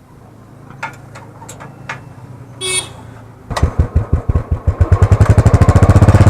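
Royal Enfield Classic 350's single-cylinder engine being started: a few clicks and a short high beep, then about halfway through it fires with loud separate thumps that quicken into a fast, steady thumping beat.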